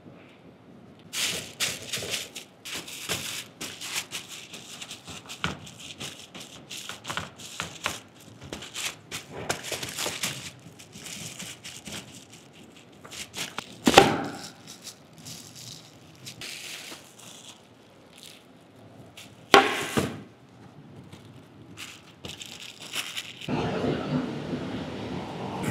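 Gloved hands pressing and shaping raw minced meat on parchment paper: crackling and crinkling of the paper with soft squelches, and two louder knocks midway. Near the end a steady hum starts as a freezer is opened.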